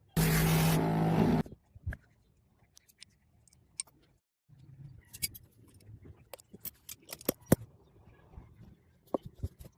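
Workshop tool noise: a loud burst of noise over a steady low hum for about a second and a half at the start, then scattered sharp metallic clicks and taps.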